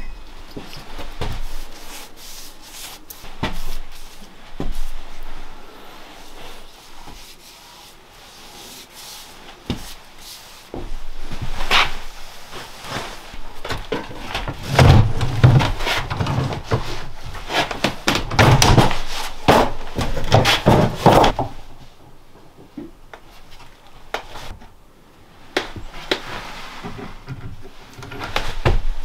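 Irregular knocks, bumps and scraping of wooden pieces being handled, with a run of heavier thumps lasting several seconds about halfway through.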